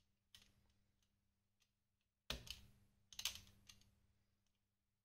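Craft knife blade clicking against the plastic housing of an office-chair caster while cutting off the small bumps that work its safety brake: a few quiet, sharp clicks, the loudest about two seconds in and a quick cluster a second later.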